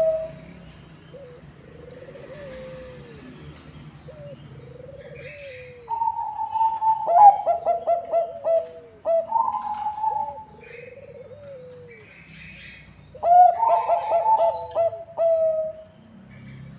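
Bangkok-type zebra doves cooing: three loud song phrases, each a quick stutter of short notes running into a held coo, about six, nine and thirteen seconds in. Softer, lower coos fill the gaps between them.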